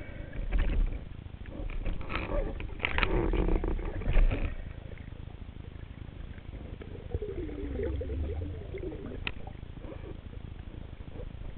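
Muffled underwater noise heard through a camera's waterproof housing: knocks and rustling over the first four seconds or so, then a quieter low rumble with a wavering tone around eight seconds in.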